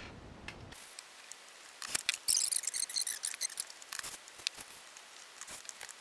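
Small clicks, taps and scrapes as a screw and a small wooden bar are handled against a cordless drill and set in place, with a brief sharper rasping clatter about two seconds in.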